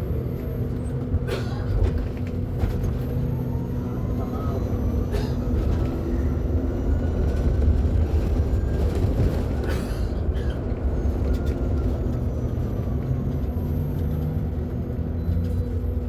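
Mercedes-Benz eO500U electric bus's traction motor whining, rising in pitch as the bus picks up speed and falling again as it slows, over a steady low rumble with a few knocks and rattles.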